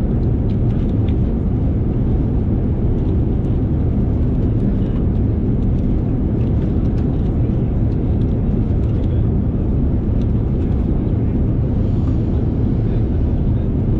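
Steady low rumble of airliner cabin noise inside a Boeing 787-9, the engine and airflow noise holding at an even level without change.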